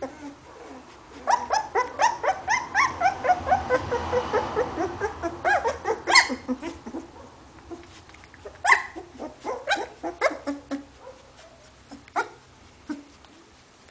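Two-week-old hovawart puppy squealing and whimpering in rapid, short, high-pitched calls, several a second through the first half, then only now and then.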